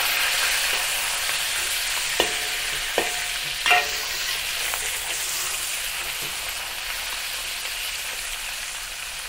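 Shrimp sizzling in hot oil in a wok, the sizzle slowly fading. Three light clinks of a metal spatula against the wok come about two, three and nearly four seconds in.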